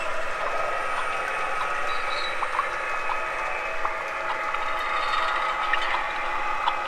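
O scale model train running on three-rail track, MTH ES44AC diesel leading: a steady mechanical whir with a scattering of sharp clicks from wheels over the rails.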